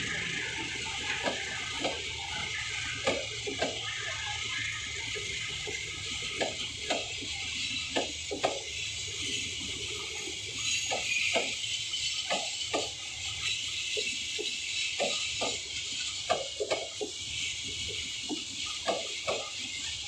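Passenger coaches rolling slowly past with a steady rushing hiss, their wheels clacking over rail joints in pairs, one pair every few seconds as each bogie crosses.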